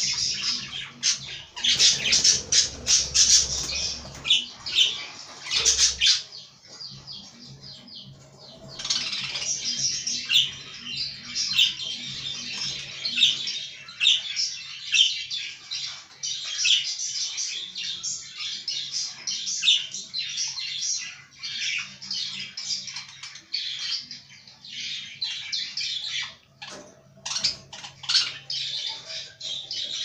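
Budgerigars chattering in a cage: a fast, continuous stream of high chirps, warbles and squawks, with a few low thuds in the first six seconds and a brief lull about seven seconds in.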